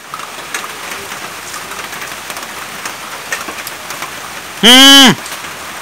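Steady rain falling on the water of a small concrete fish tank and the vegetation around it, a continuous patter of drops. Near the end comes a single loud pitched call of about half a second, rising and then falling in pitch.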